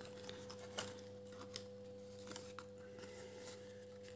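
Faint scattered clicks and rustles of a small white paperboard box being handled and opened by hand, over a faint steady hum.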